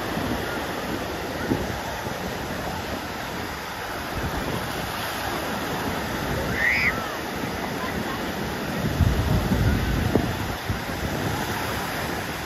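Small surf waves washing up the beach in a steady rush, with wind buffeting the microphone and distant beachgoers' voices. A brief high cry comes about seven seconds in, and a louder low rumble of wind on the microphone follows a couple of seconds later.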